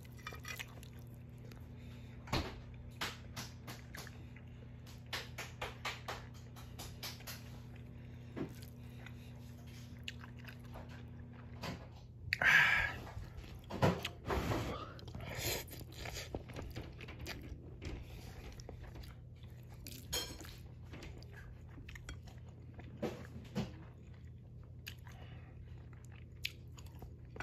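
A person chewing a mouthful of stir-fried instant noodles close to the microphone, with many small wet mouth clicks and smacks. There is a louder stretch lasting about a second halfway through.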